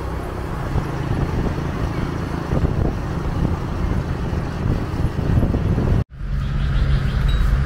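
Steady rumble of road vehicle noise. It cuts off suddenly about six seconds in, and a different background follows with a few faint, short high tones.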